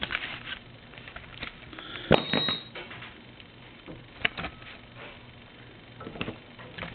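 A few light clicks and knocks from a telephone circuit board being handled, the loudest about two seconds in.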